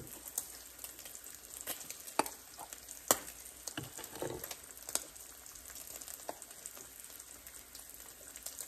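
Bacon frying in a pan: a steady sizzle with scattered sharp pops. Mixed in is the scraping of an old metal hand-crank flour sifter being worked.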